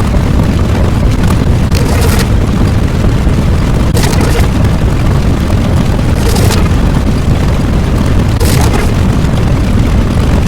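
A loud, continuous deep rumble sound effect, with a short hissing crackle laid over it about every two seconds.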